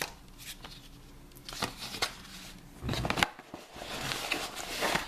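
Rustling and light taps of a small paper card and felt drawstring pouches being handled and opened, in short irregular bursts with a few sharp clicks.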